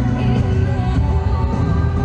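Loud music with a deep, continuous bass and long held notes.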